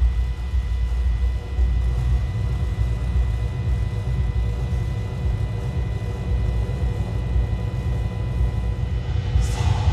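Dark electronic soundscape: a deep, low drone that wavers in level, with thin steady high tones held above it. A hissing swell comes in near the end.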